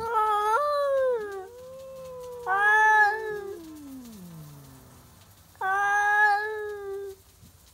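A ginger cat and a grey tabby cat caterwauling at each other in a territorial standoff: three loud drawn-out yowls, each a second or more long, with a quieter long moan between the first two that sinks steadily lower in pitch.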